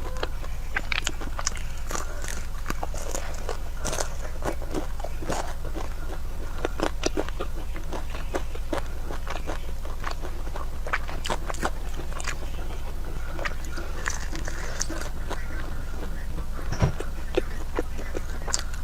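A person chewing and biting food close to the microphone, with many short sharp clicks and crackles scattered throughout, over a steady low hum.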